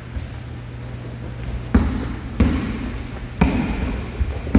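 Basketball bouncing on a hardwood gym floor, four sharp bounces about a second apart, echoing in a large hall.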